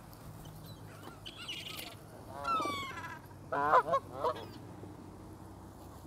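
Canada geese honking: one drawn-out call with a falling pitch about halfway in, then three loud honks in quick succession.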